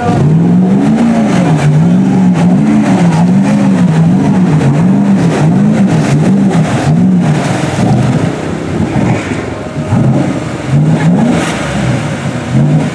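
Lifted Chevrolet Avalanche's V8 engine being revved up and down over and over, about once or twice a second, as its mud tyres churn through deep water and mud. The rhythm turns more uneven in the second half.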